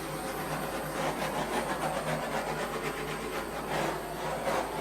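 A steady rushing hiss that holds an even level throughout.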